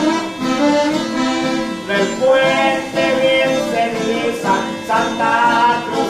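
A corrido played live on a button accordion and acoustic guitar, with men singing the verse over the accordion's held chords and the guitar's strummed accompaniment.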